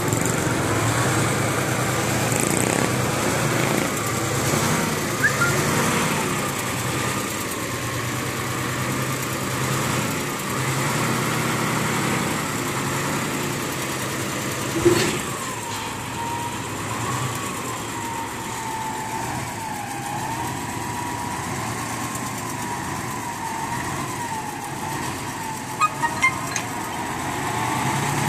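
Truck engines running during roll-on/roll-off loading, a steady hum with a wavering whine above it. One loud bang about halfway through, and three quick knocks near the end.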